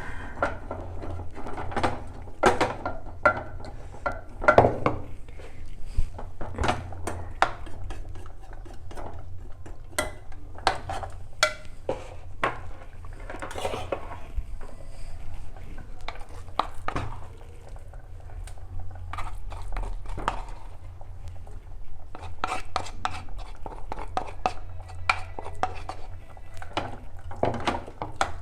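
Metal utensils clinking, knocking and scraping against pots and dishes in irregular strokes, as food is handled and stirred in the kitchen.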